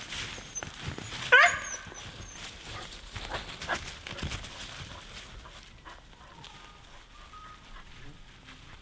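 A dog gives one sharp bark that rises in pitch about a second in, followed by two fainter short yelps a couple of seconds later.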